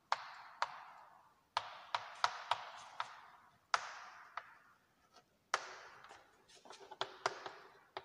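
Chalk tapping and scratching on a chalkboard as words are written: a dozen or so sharp, irregular taps, each trailing off into a short scrape.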